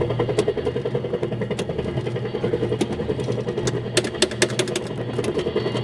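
Bafco helicopter kiddie ride running: its drive motor and mechanism give a steady rhythmic mechanical hum as the ride moves, with a few sharp clicks about four seconds in.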